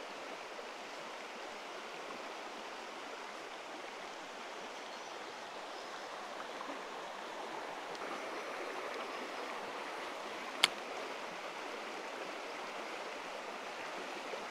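River water rushing steadily over rocks, an even rush with no pitch. One sharp click cuts in about ten seconds in.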